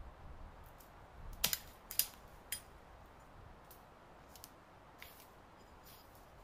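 Dry dead twigs snapping off a pine trunk: three sharp cracks about half a second apart, then faint crackling and rustling of steps through dry pine needles and brush.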